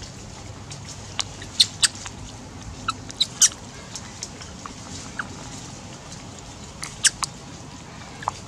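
Short, high-pitched animal squeaks and chirps, about a dozen in irregular clusters, over a steady outdoor background.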